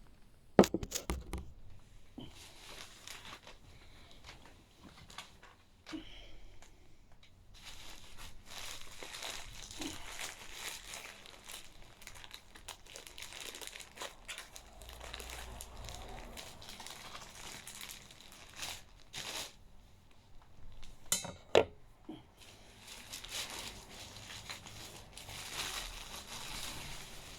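Packaging being handled and opened: crinkling and tearing of wrapping, with a few sharp knocks, the loudest just after the start and about two-thirds of the way through.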